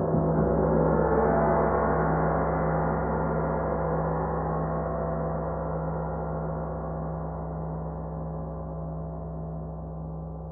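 A 32-inch handcrafted spiral gong ringing: a deep steady hum under a shimmer of many overtones. It swells in the first couple of seconds and then slowly fades.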